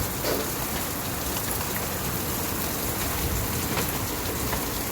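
Heavy rain pouring steadily, with scattered sharp ticks of impacts.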